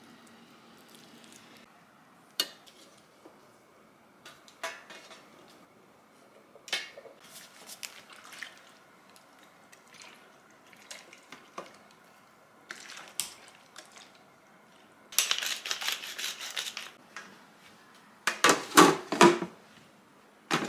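Bamboo skewers of chicken and green onion being handled and laid in a stainless steel tray, with scattered light taps and clinks. Partway through comes a short hissing spatter of cooking wine sprinkled over the skewers, and near the end a stainless lid clatters loudly onto the tray.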